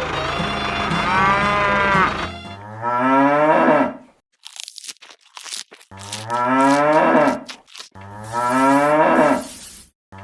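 Background music ending about two seconds in, then a cow mooing three times in long, drawn-out moos, with a few short crackles between the first two.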